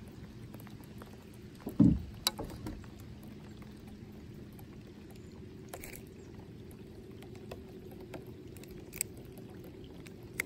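Small bass being swung aboard and handled in a plastic kayak: one loud dull thump against the hull about two seconds in, then a few light clicks and knocks, over a steady low background noise.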